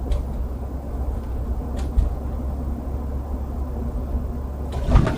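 Cabin noise of a UAZ Patriot on the move: a steady low rumble from the road and drivetrain, with a light tick about two seconds in and a louder knock near the end as it goes over a bump. No squeak comes from the rear door, whose hinge thrust bushing has been replaced.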